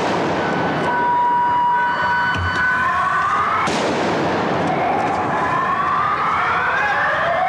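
Emergency-vehicle siren over loud, rough street noise: a steady high tone early on, then two slow rising wails.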